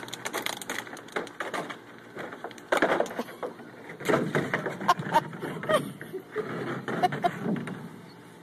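Hard plastic kiddie pool scraping and knocking on concrete as a puppy carries it along from underneath, in irregular clatters with a few short squeaks.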